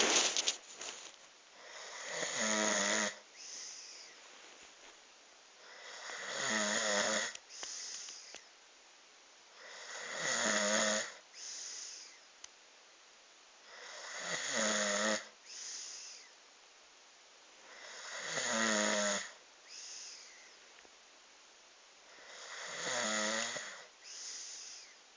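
A sleeping man snoring: six loud snores at a steady pace, about one every four seconds, each followed by a shorter, softer breath.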